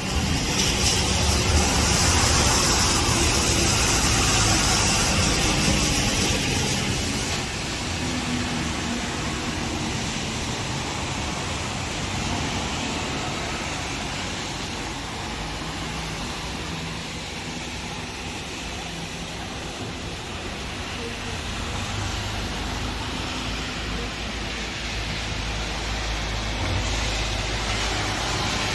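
Steady rain and wind noise with a low rumble of traffic, louder and hissier for the first several seconds before easing.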